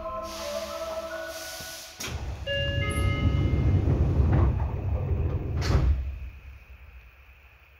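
Seibu 6000 series electric train stopped at a station with its sliding doors opening: steady tones and a hiss of air, then rumbling and a sharp knock, after which it goes much quieter near the end.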